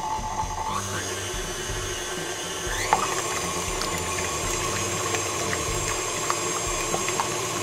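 Stand mixer motor running with its wire whisk spinning through egg whites in a stainless steel bowl, beating them towards the frothy stage. It is a steady whine that rises in pitch and gets a little louder about three seconds in.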